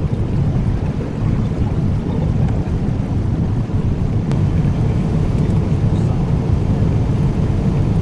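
Boeing 777-200 cabin noise heard from a window seat on final approach: a steady, loud, low rumble of engines and airflow.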